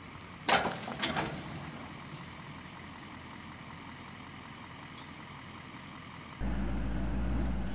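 Two sharp metal clanks from a steel round-bale trailer's frame being worked by hand, about half a second apart. Near the end a steady low engine hum starts.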